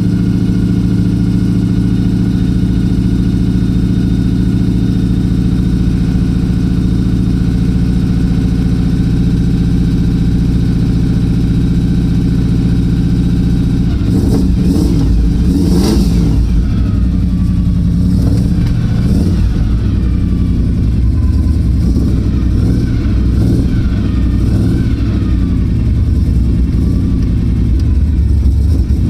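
Chevrolet 454 big-block V8 in a 1984 K5 Blazer running at a steady idle that the owner thinks is missing a little. About halfway through it is given throttle, and the engine pitch rises and falls unevenly.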